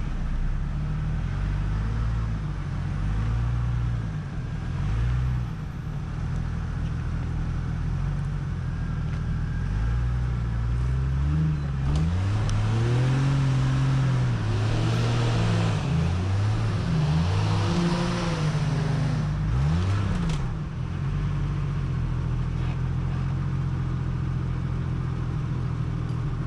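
An off-road 4x4's engine running steadily, then revved up and down several times in quick succession about halfway through, with a hiss of noise alongside the loudest revs, before settling back to a steady run.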